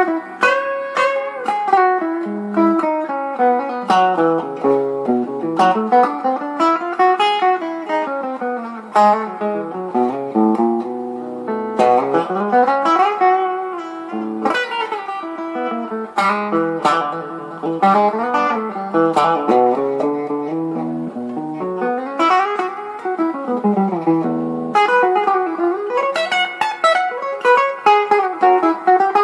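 Electric guitar played clean: quick single-note lead runs that climb and fall over the neck, with a short break about 25 seconds in.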